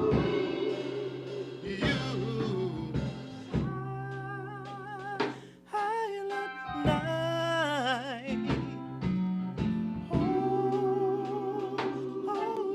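Men's gospel choir singing without words, with a lead voice holding long notes with a wide vibrato over sustained choir harmony, a steady low accompaniment and light drum hits.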